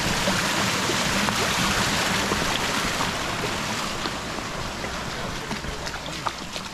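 Stream water rushing steadily, easing off a little in the second half.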